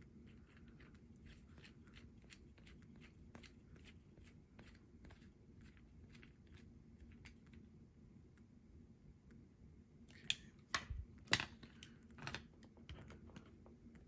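Small hex driver turning a tiny bolt into an RC crawler's motor mount: faint, irregular clicking. A few louder knocks come near the end as the little plastic-and-metal truck is turned over on the bench.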